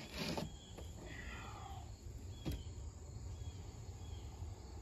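A sheet of plywood being flipped over and handled on wooden sawhorses: a brief scraping rustle at the start and a single sharp knock about two and a half seconds in. Faint insect chirps sound in the background.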